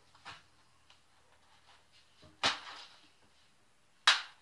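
A few separate sharp clicks and knocks of hand tools and small metal grinder parts being handled on a sheet-metal workbench: a faint one right at the start, a loud one about halfway, and another loud one near the end.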